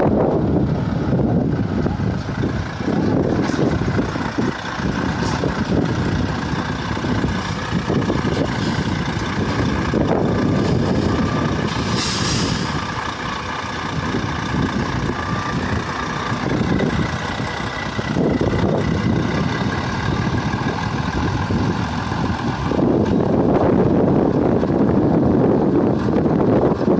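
Volvo truck's diesel engine running as the tractor unit and its two trailers move slowly past, with a short air-brake hiss about halfway through. Low wind rumble on the microphone swells near the end.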